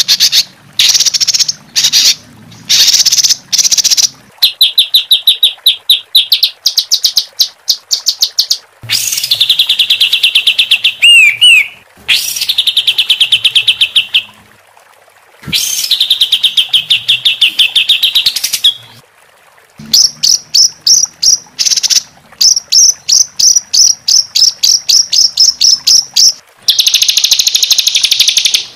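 Songbird singing harsh, rapid-fire trills: fast runs of high, sharp repeated notes in loud bursts of one to three seconds with short pauses between, the "tembakan kasar" (rough shot) style of song used as masteran for training cage birds.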